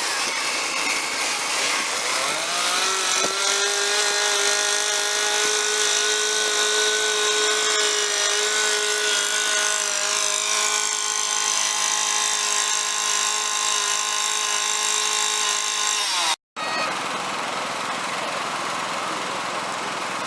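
Chainsaw running at high revs: it revs up over the first few seconds, then holds a steady high-pitched whine that wavers slightly as it works. Near the end the sound cuts out for an instant and comes back as a rougher engine sound.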